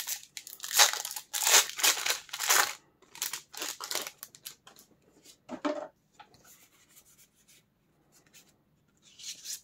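Foil Pokémon booster pack being torn open and crinkled, loudest over the first three seconds, followed by quieter rustling and light handling noises and a short burst of crinkling near the end.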